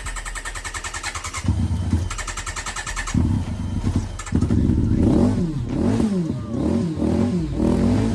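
Kawasaki Concours 14's inline-four cranking on the electric starter, powered from a jumper pack on a dead battery. It catches briefly twice, then starts about four seconds in and is revved up and down several times.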